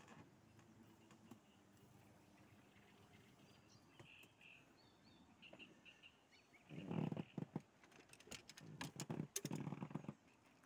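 Faint short bird chirps over quiet open-air background, followed by two louder bouts of rustling noise with sharp clicks in the second half.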